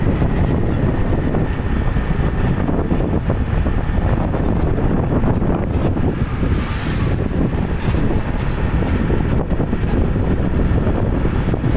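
Steady road driving noise from a moving vehicle, a low engine and tyre rumble with wind buffeting the microphone. An oncoming car swishes past about six to seven seconds in.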